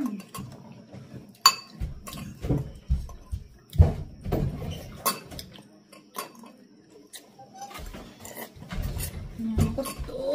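Forks and spoons clinking and scraping against ceramic bowls, in scattered sharp clicks, as noodle soup is eaten and slurped.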